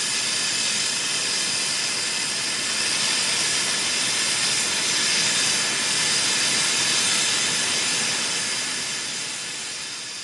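Steam hissing out of a 5-inch gauge double Fairlie live-steam model locomotive as it stands, a steady hiss that swells slightly and then eases off in the last couple of seconds.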